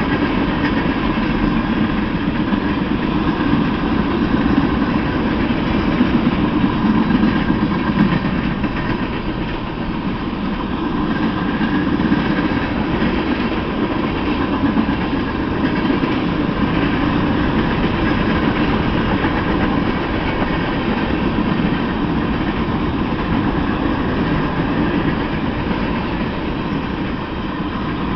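Freight train of tank cars and flatcars rolling steadily past, a continuous rumble of steel wheels on rail.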